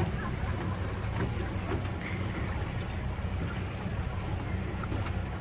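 Motorboat engine running steadily, a low hum, under a rush of wind and water as the boat moves along.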